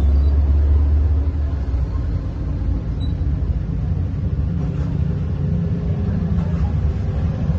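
Steady low engine rumble of street traffic, a little louder in the first second.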